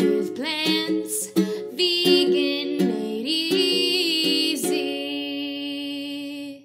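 Short intro jingle: plucked-string music with a singing voice, ending on a long held note that stops abruptly.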